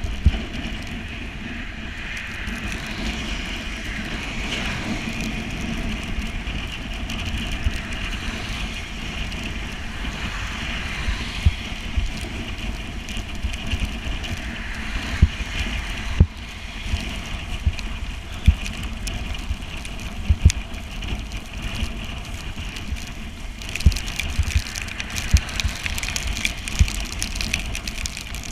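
Steady rushing noise of a bicycle ride in the rain: wind and wet-road spray on the microphone, broken by occasional short low thumps.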